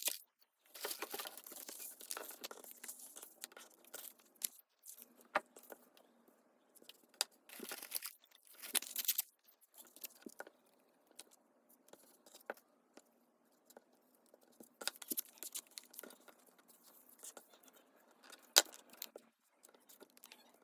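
Paper and cardstock being handled for crafting: bursts of rustling and tearing-like crinkling with scattered light taps and clicks, one sharper click near the end.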